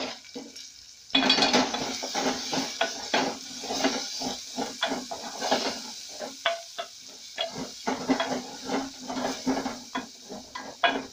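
Wooden spoon stirring beef and spices in an aluminium pot, scraping the bottom and knocking repeatedly against the sides, over the sizzle of frying. The stirring starts about a second in.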